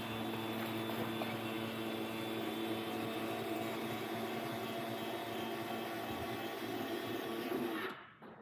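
Electric landing-gear actuator motor of a Questair Venture running steadily under load as it drives the nose gear and gear doors, stopping about eight seconds in as the gear reaches the end of its travel.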